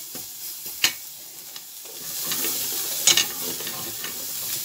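Meat pieces sizzling as they fry in oil in a stainless steel pot, stirred with a metal spoon that clinks against the pot about a second in and again about three seconds in.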